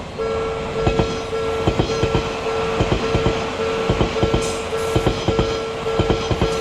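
A Japanese level-crossing warning bell sounds a steady electronic tone while a train passes, its wheels knocking over the rail joints in quick clacks, often in pairs. The sound starts suddenly just after the opening.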